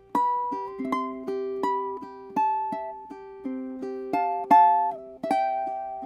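aNueNue Whale Koa artist-signature ukulele, all solid Hawaiian koa, fingerpicked solo. It plays a slow melody of single plucked notes with a few two-note chords, and each note rings on until the next is picked.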